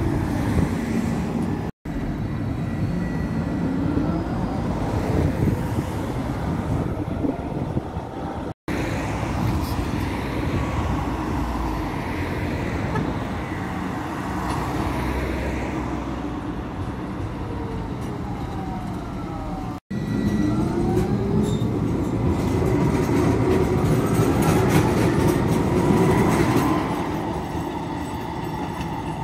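Trams running, their electric motors whining and rising and falling in pitch over a steady rolling rumble. The sound is cut three times by brief dropouts where separate recordings are joined.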